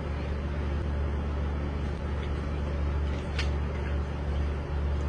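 Steady low hum, with a single faint click about three and a half seconds in.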